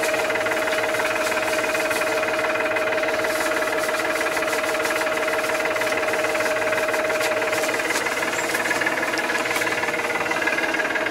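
Massey Ferguson tractor's diesel engine running steadily while driving, heard from inside the cab: an even drone with a constant whine, and light clicks and rattles throughout.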